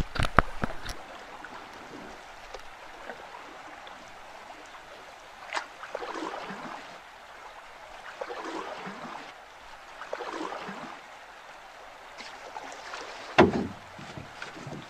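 Canoe paddling: swishing paddle strokes through the water about every two seconds. A few sharp knocks come at the start, and one loud knock comes near the end, typical of the paddle striking the canoe's hull.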